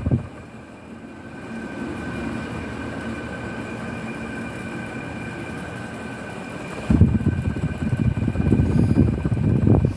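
Electric fan motor running noisily with a steady high-pitched whine over a low hum. About seven seconds in, a loud, fast low rattling rumble starts and lasts to the end.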